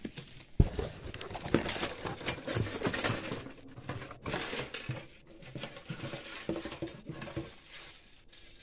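Rustling and clattering of a tangle of plastic butterfly ornaments on wires being pulled out of a cardboard box, with many small clicks and a sharp knock about half a second in.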